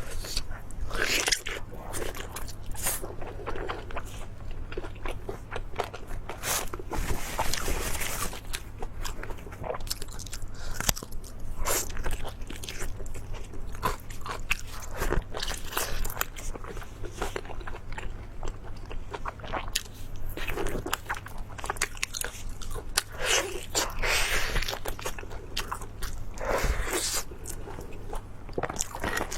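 Close-up sound of a person biting and chewing crunchy food, with a dense, irregular run of crunches and mouth sounds.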